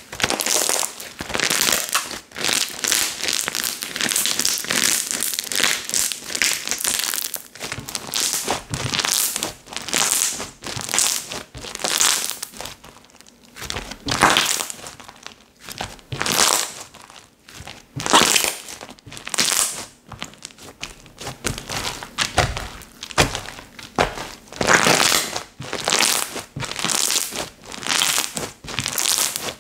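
Slime being kneaded and squished by hand: a run of short, crinkly squishing noises, with louder separate squishes about once a second in the second half.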